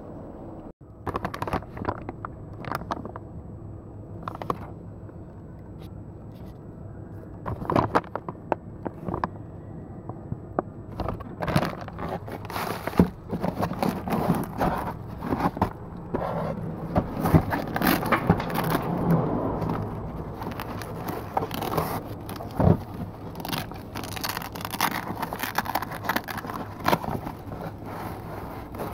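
Irregular clicks, knocks and scraping of objects being handled, over a low steady hum.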